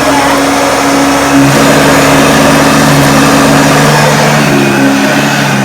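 A Hoover Junior upright vacuum cleaner running on carpet: its motor gives a steady hum over a hiss, with its beating brush bar turning. The hum shifts in pitch about a second and a half in, and again near the end.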